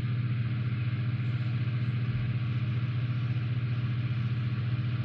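A steady low hum with a stack of even overtones and a hiss above it, unchanging throughout.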